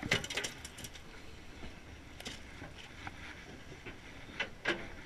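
Quick sharp taps and knocks on a boat's deck, clustered in the first second with a few more later, over the boat's steady low rumble.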